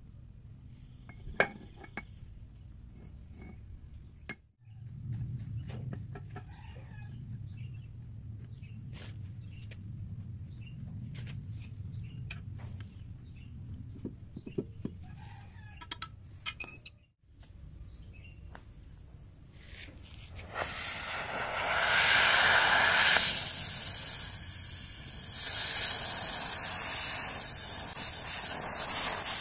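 A few sharp clicks of a steel tool bit being handled at a bench vise. About twenty seconds in, a gas welding torch starts a loud, steady hiss that heats the tool bit clamped in the vise; the hiss drops briefly and comes back.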